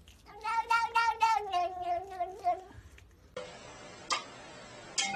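A tabby cat gives one long, wavering meow of about two and a half seconds that dips slightly in pitch at the end. After it comes a steady hiss with two sharp clicks.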